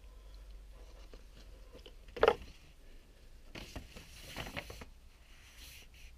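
Small handling noises: one sharp knock about two seconds in, then about a second of scratchy rustling and scraping, and a fainter rustle near the end.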